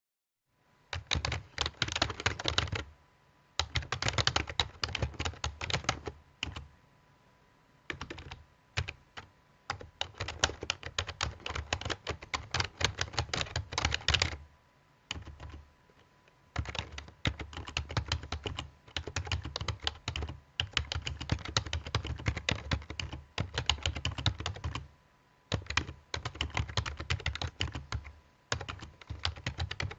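Typing on a laptop keyboard: quick runs of key clicks in bursts of a few seconds, broken by short pauses.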